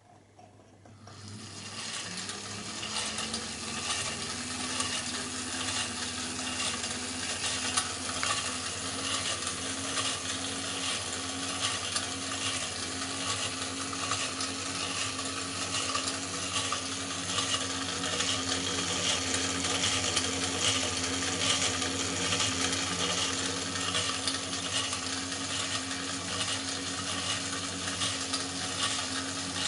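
Doll metal toy swing boat with three gondolas running: its drive hums and rises in pitch over the first couple of seconds as it comes up to speed, then runs steadily under a continuous fine metallic rattling and clinking.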